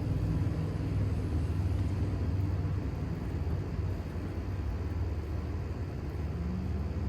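A low, steady rumble, with a faint rising tone near the end.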